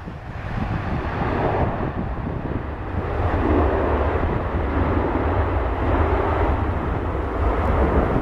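Boeing 757 jet engines roaring as the airliner rolls out along the runway after landing, with a low wind rumble on the microphone. The roar swells about three seconds in.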